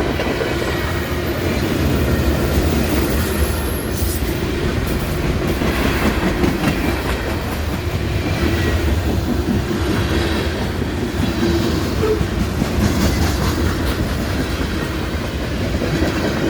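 CSX freight train cars rolling past a grade crossing: a loud, steady rumble of steel wheels on the rails.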